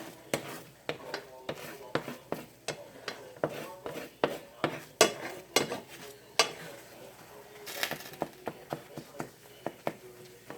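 A cooking utensil repeatedly knocking and scraping against a pan as food is stirred: irregular sharp clinks, two or three a second, with a short scrape about eight seconds in.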